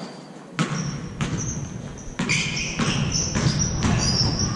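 A basketball dribbled on a hardwood court floor, bouncing about twice a second, with high-pitched squeaks of sneakers on the floor.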